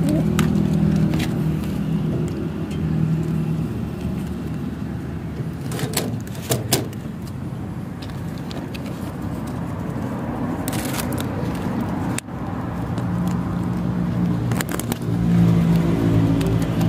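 Wire-mesh pigeon-loft door and its fastening handled by hand, with scrapes, rattles and sharp clinks, the loudest about six and eleven seconds in. A steady low hum runs underneath.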